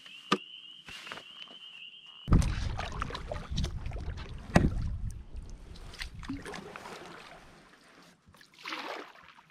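Kayak on open water: water sloshing and splashing around the hull with a low wind rumble on the microphone, starting suddenly about two seconds in, and a sharp knock about halfway through. Before that there is a steady high tone with a few faint clicks.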